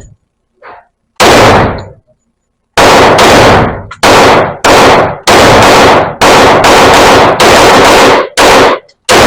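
Hi-Point JXP 10mm semi-automatic pistol firing a string of shots. The first comes about a second in; from nearly three seconds in they follow rapidly, roughly two a second. Each shot is very loud and rings briefly in the indoor range.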